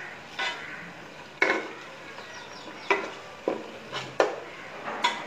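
A metal spoon stirring onions and spices frying in oil in a large metal pot, scraping and knocking against the pot several times at irregular intervals, over a faint sizzle.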